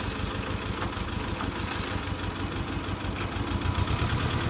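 Wheel loader's engine running steadily at low revs while the bucket is tipped, a little louder near the end.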